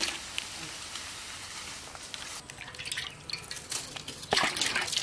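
Slices of green banana frying in hot oil in an iron kadai, sizzling steadily, with a burst of louder crackling near the end as more pieces go in.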